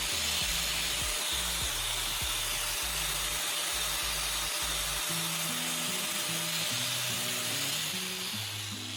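Angle grinder with a sanding disc grinding down the end of a wooden handle: a steady abrasive hiss that eases off slightly near the end, with background music under it.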